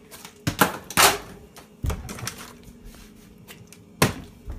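Plastic water bottle being flipped, knocking onto hard kitchen surfaces about five times, with the loudest knocks about a second in and near the end.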